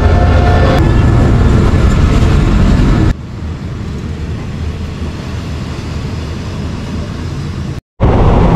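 Steady rumble of a train carriage running, heard from inside a fan-cooled second-class coach. It drops suddenly to a quieter rumble about three seconds in and cuts out briefly near the end before returning loud.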